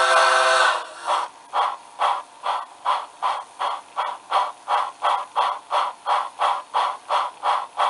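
TCS WOW Sound steam decoder on a model locomotive: the long whistle cuts off just under a second in, then a steady rhythm of steam exhaust chuffs follows, about two and a half a second, with the locomotive running at speed.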